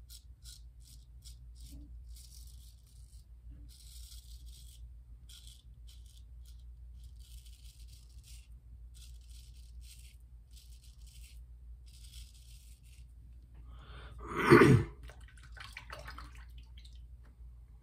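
Gold Dollar 208 straight razor scraping lather and stubble off the neck in a run of short, crisp rasping strokes, over a low steady hum. Near the end there is one loud, brief sound of another kind.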